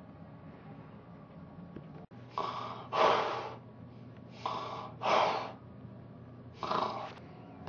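A person breathing heavily and loudly: three strong breaths about two seconds apart. The first two each come in two parts, a shorter one and then a louder one.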